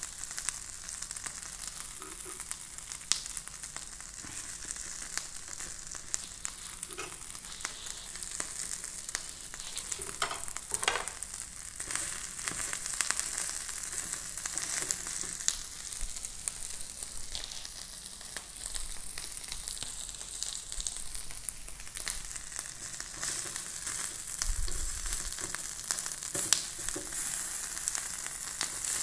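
Butter-basted marinated chicken pieces sizzling steadily on a hot perforated grill pan, with scattered sharp crackles as the fat spits.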